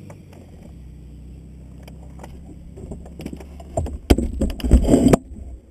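Canopy of a Twin II Acro glider being pulled down and latched shut: scattered clicks over a steady low hum, then a loud knock about four seconds in and about a second of rattling clatter that stops abruptly.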